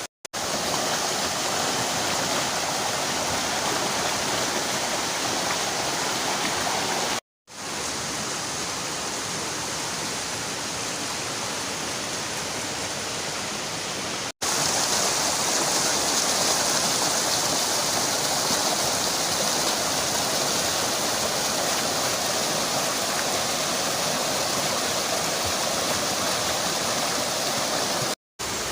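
Steady rush of a clear river and a gentle waterfall, with three short silent gaps where the sound cuts out and back in.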